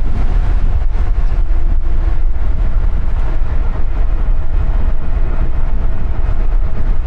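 Loud, steady wind rush on the microphone and road noise from a bicycle riding along a highway.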